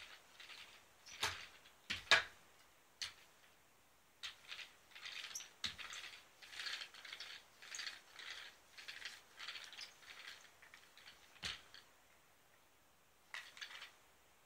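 Adhesive lint roller on a long handle swept back and forth across a rug, making a run of short scratchy, crackling strokes about one or two a second. A few sharp knocks stand out among them.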